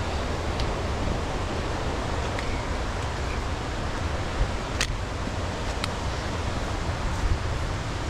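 Steady rush of water from a waterfall on a forest stream, with a low rumble underneath and a couple of faint clicks about five and six seconds in.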